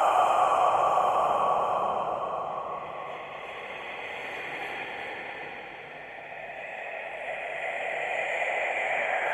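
Scary whispering: a breathy hiss with no clear words, loud at first, fading to its quietest about six seconds in, then swelling again.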